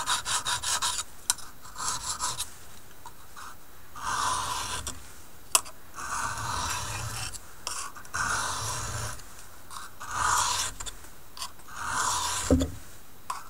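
High-carbon steel knife blade being stroked along an oiled honing stone to hone an already sharp edge. Quick short scraping strokes for the first couple of seconds, then slower, longer strokes about every two seconds, with one sharp click about halfway.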